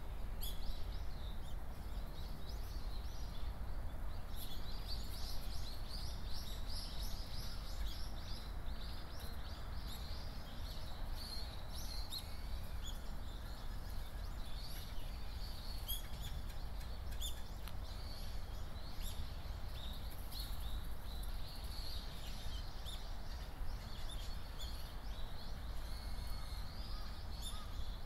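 Small birds chirping and twittering on and off throughout, over a steady low rumble of outdoor background noise.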